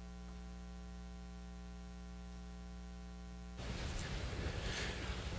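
Steady electrical hum from the church sound system with no one speaking. About three and a half seconds in, it gives way to a livelier room sound with faint rustling and footsteps as the pastor walks up to preach.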